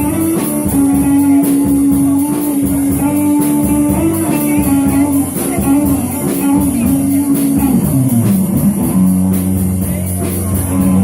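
Rock music with guitar and a drum kit playing a steady beat; a held note slides down about eight seconds in and settles on a lower pitch.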